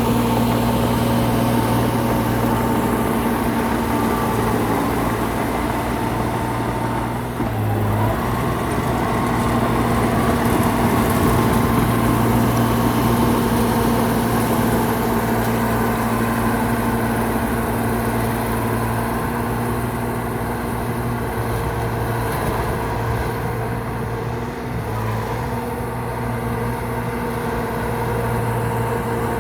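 Engine running steadily at a low, even pitch, with a brief change in its note about a quarter of the way in and again near the end.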